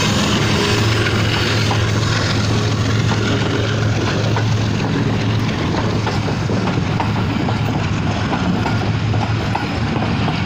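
Pakistan Railways passenger coaches running past close at speed: a steady loud rumble of wheels on rails, with a scatter of short clicks from the wheels over the track.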